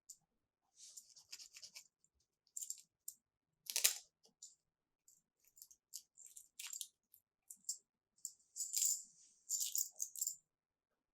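Small plastic toy pieces and packaging being handled: irregular light crinkling and clicking, with a sharper plastic clack about four seconds in and a longer crinkly rustle near the end.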